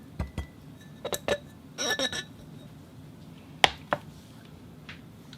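Foley animal-chatter sound effects: three short squeaky vocal-like calls in the first two seconds, then three sharp clicks.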